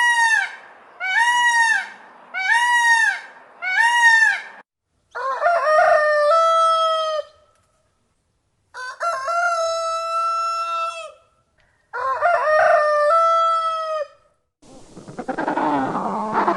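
Domestic fowl calling: four short rising-and-falling calls, then a rooster crowing three times, each crow about two seconds long. Near the end a different, jumbled mix of calls begins.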